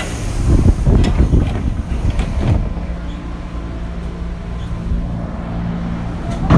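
Running sound inside a JR 205 series electric train motor car with external-fan traction motors. Irregular low rumbling knocks come over the first two and a half seconds, then a steady low hum.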